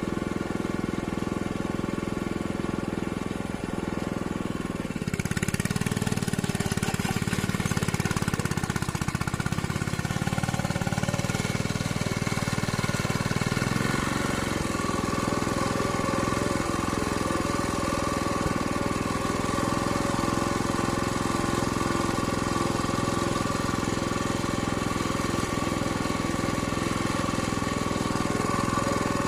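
Single-cylinder diesel engine of a two-wheel hand tractor running steadily while pulling a moldboard plough through grassy soil. It gets louder and harsher about five seconds in and changes tone again about halfway through, without stalling.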